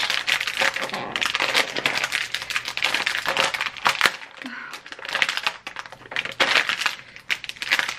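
Plastic snack packet crinkling and crackling as it is twisted and tugged at with both hands, a bag that resists opening. A brief strained vocal sound comes about halfway through.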